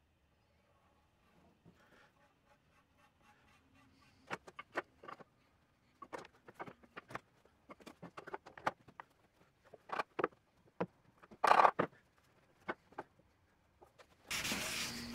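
Scattered knocks and clicks of wooden boards and bar clamps being handled as an edge-glued board panel is clamped up, the loudest cluster about two-thirds through. Near the end a steady rubbing on wood begins.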